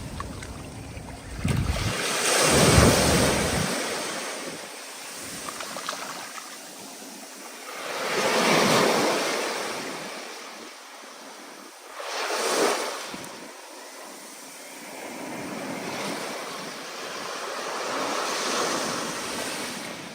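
Ocean surf in stormy weather: waves break and wash in four surges, the first and loudest about three seconds in, with wind noise beneath.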